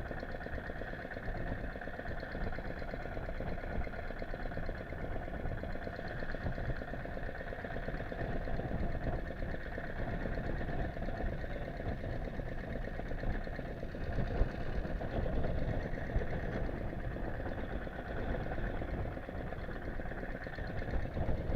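A fishing boat's engine running steadily with a fast, even rhythm.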